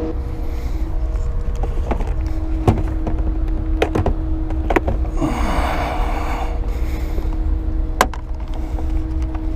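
Small electric motor, likely the boat's trolling motor, running with a steady whine, over a low rumble. Scattered sharp knocks and clicks of gear against the boat come through, and there is a brief rush of noise about five seconds in.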